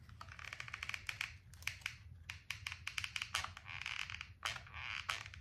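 Gathered crepe paper crinkling and rustling as it is fluffed up by hand, with many small clicks and taps.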